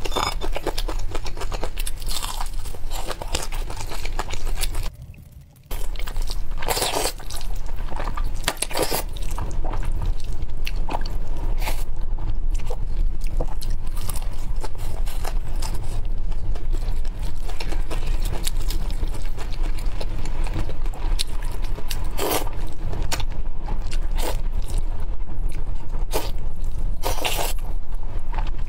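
Close-miked eating: crunching bites into cheese-coated fried chicken and chewing, with a few loud crunches standing out, over a steady low hum. The sound drops out briefly about five seconds in.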